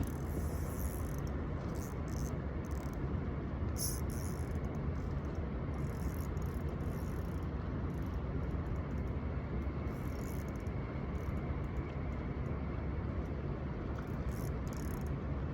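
Fishing reel buzzing in short, irregular spells as a hooked carp pulls line, over a steady low rumble.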